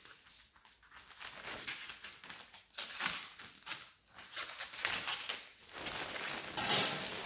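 Disposable sterile paper drape being pulled off and crumpled up by gloved hands: irregular crinkling and rustling, loudest in a burst near the end.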